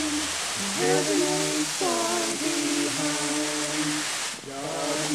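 Summer storm wind howling over a steady hiss of wind-driven rain, with several sustained tones whose pitch slides up as gusts strike about one and two seconds in. The wind eases briefly near the end.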